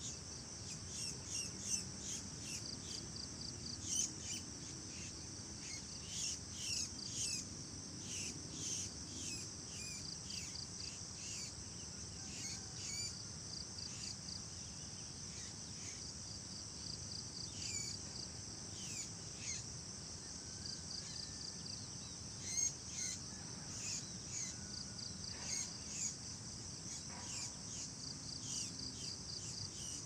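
Steady high-pitched insect trill, with many short bird chirps and quick down-slurred calls over it. The calls are fewer in the middle stretch.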